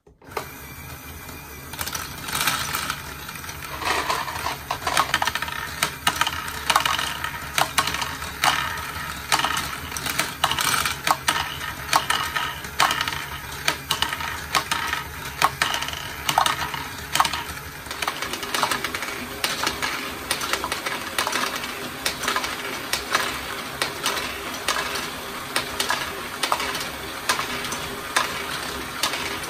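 LEGO Great Ball Contraption stepper module running: small plastic LEGO balls clicking and clattering as the motor-driven steps lift them, over a steady mechanical hum. About two-thirds through, the hum changes to a higher, steadier tone.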